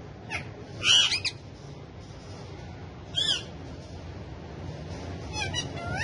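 Indian ringneck parrots (rose-ringed parakeets) giving short, high-pitched calls in separate bursts: the loudest about a second in, another around three seconds, and a quick run of calls near the end.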